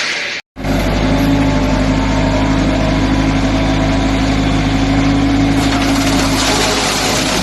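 Excavator engine running steadily at constant speed with a steady hum, after a brief dropout about half a second in.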